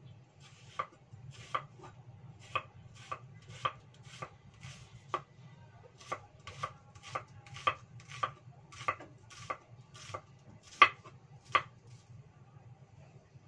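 Chinese cleaver slicing shallots on a round wooden chopping block: about twenty separate knocks of the blade onto the wood, one or two a second, unevenly spaced. The last two strokes are the loudest, and the chopping stops a couple of seconds before the end.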